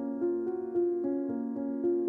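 Background music: a slow piano-style keyboard melody, with a new note struck about every half second.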